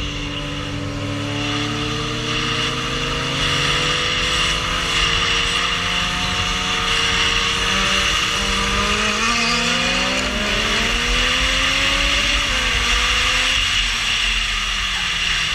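Vehicle engine running at speed, its pitch rising several times as it accelerates, over a steady rush of wind noise.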